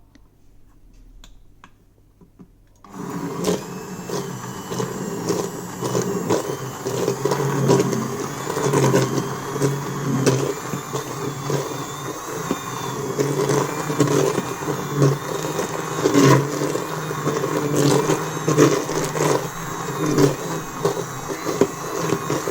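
Hand blender switched on about three seconds in and run for the rest of the time, puréeing leek and tomato lentil soup in the pot, its motor pitch wavering as it works through the soup.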